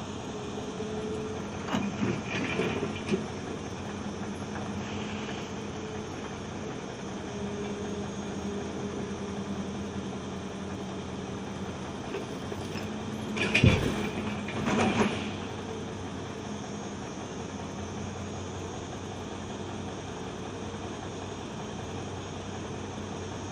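Logging truck's engine running steadily, with a few heavy knocks and thumps; the loudest thump comes about halfway through.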